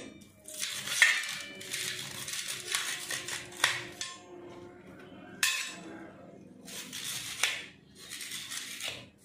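A steel spoon scraping the soft flesh out of split drumstick (moringa) pods over a stainless steel plate, in several rough strokes. The spoon clinks sharply on the plate a few times.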